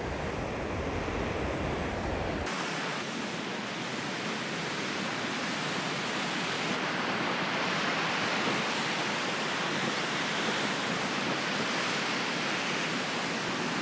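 Steady rush of the Niagara River's upper rapids, white water pouring over rocks just above the falls.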